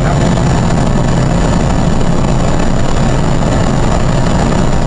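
Steady cockpit noise on the flight deck of a Boeing 777 after landing: an even rumble and rush of engine and airflow noise, with a faint high whine held throughout.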